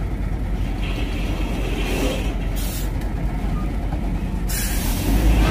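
Heavy diesel vehicle's engine running steadily at low revs, with an air-brake hiss about two and a half seconds in and another starting near the end as the engine grows louder.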